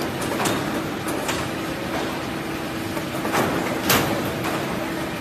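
Poultry processing line with a belt weight-sorting machine running: a steady machine hum under irregular sharp clacks and knocks, the loudest about four seconds in.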